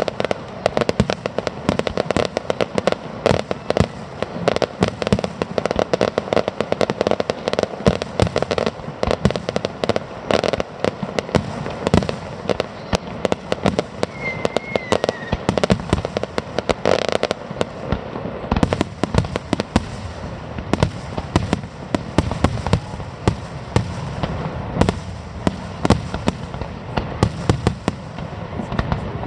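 Fireworks display: a dense, continuous crackle of many rapid bangs and pops, with no pause.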